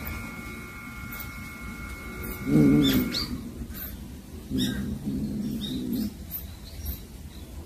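Low growling from a cat guarding its caught mouse, with a short loud growl about two and a half seconds in and a longer one from about four and a half to six seconds, as a second cat comes near.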